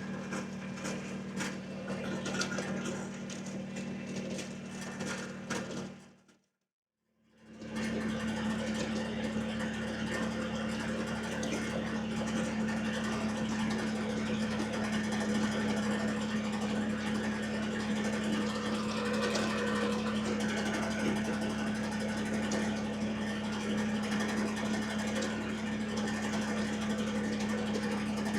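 Kubota BX23S sub-compact tractor's three-cylinder diesel engine running steadily, with some rattling in the first few seconds. The sound drops out completely for about a second around six seconds in, then the engine hum carries on.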